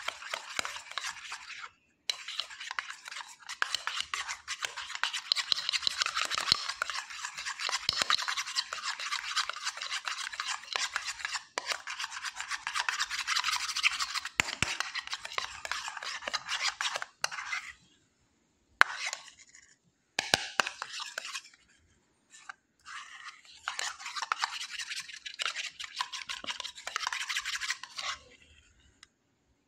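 A steel spoon stirring and scraping a sticky paste of turmeric, aloe vera gel and honey around a small bowl: a rapid, continuous rasping, with a few short pauses.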